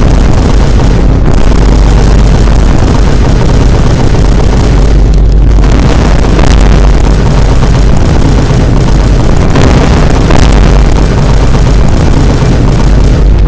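Vine boom sound effects pitched and stacked into a melody, played so loud that they clip into a constant, heavily distorted wall of deep booms.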